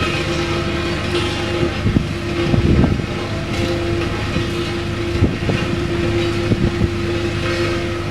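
Engine of heavy road-construction machinery running steadily, with a few short knocks and clanks over it.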